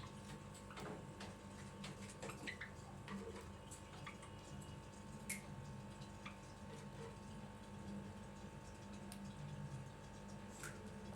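Pet Java sparrows: scattered light clicks and short chirps, one sharper click about five seconds in, over a steady low hum.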